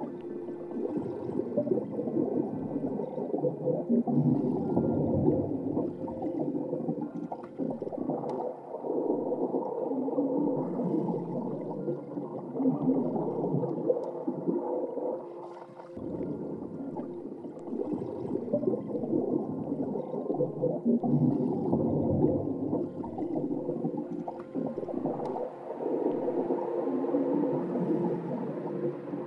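Muffled underwater gurgling and rumbling with a few faint steady tones running under it, an underwater soundscape. It thins out briefly about halfway through, then picks up again.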